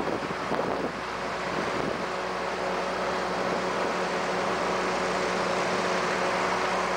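An engine running steadily over a broad rushing noise, its even hum setting in about two seconds in.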